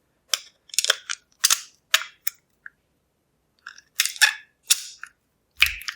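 Sharp clicks and knocks from handling a Lockwood V7 padlock as it is being taken apart: a run of several in the first two seconds, then another cluster from about four seconds in.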